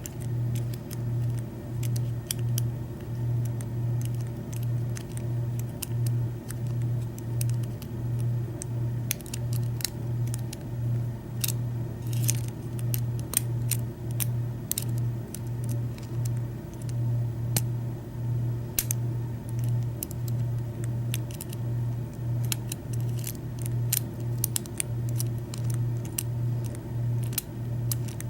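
Light metallic clicks and scrapes of a hook pick and tension wrench working the pins of a pin-tumbler lock cylinder, scattered and irregular. Underneath is a steady low hum that pulses about one and a half times a second.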